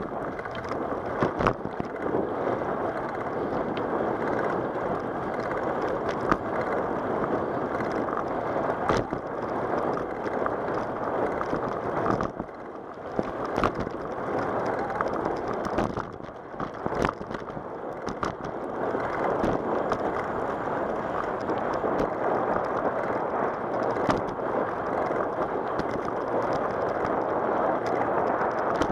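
Wind rushing over the microphone and the rolling noise of a bicycle ridden along a cracked asphalt path, with scattered knocks and clicks as it rides over the cracks.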